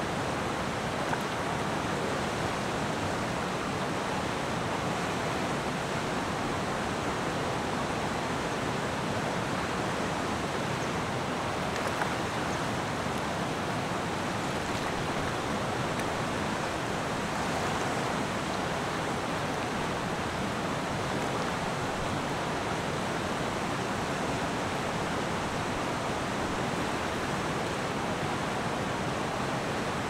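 River water flowing: a steady, even rush of water with no rise or fall.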